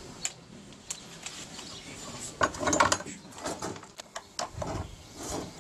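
Scattered clicks and knocks of tools being handled, including an electric plug pushed into a wall socket, with no motor running.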